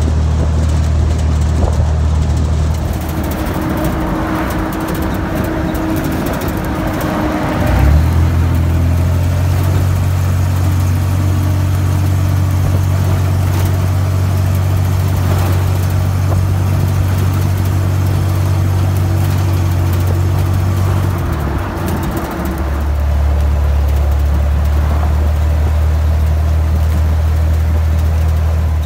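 Flat-fender Jeep's four-cylinder engine running steadily under way, heard from inside the canvas-topped cab over road noise. The engine note drops a few seconds in, steps up and gets louder about eight seconds in, and falls back again about twenty-two seconds in.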